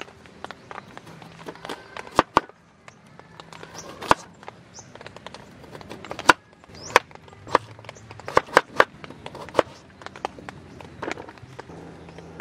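A large knife slicing a peeled potato and then a carrot on a small wooden cutting board: irregular sharp knocks of the blade against the board, with several quick ones in a row about eight to nine seconds in.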